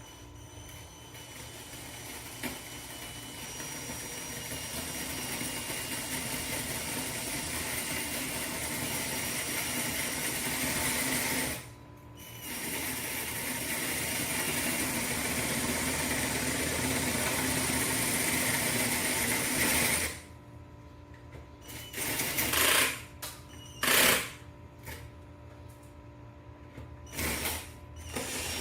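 Power drill with a 1/4-inch masonry bit boring into brick: a long steady run of drilling, a brief pause about halfway, a second long run, then a few short bursts near the end.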